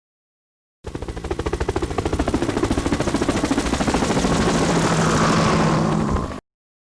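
Helicopter rotor blades chopping in a rapid, even beat that quickens and blends into a steady whir with a whine above it. It cuts off suddenly near the end.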